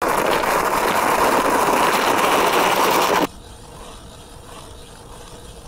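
A loud, steady rushing hiss that cuts off abruptly about three seconds in. After it, a hand ice auger grinds faintly as it bores into the ice.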